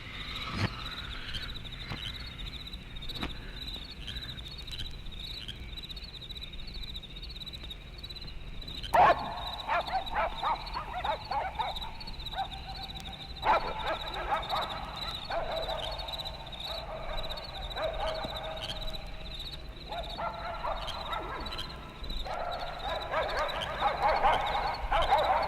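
Crickets chirping steadily; about nine seconds in, a dog starts whimpering and yipping in wavering, repeated cries that come in spells.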